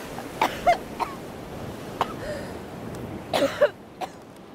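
A woman coughing and gasping in short, rough bursts: a couple of coughs, a single one, then a closer-spaced fit near the end. Behind them is a steady haze of wind and surf noise that drops away near the end.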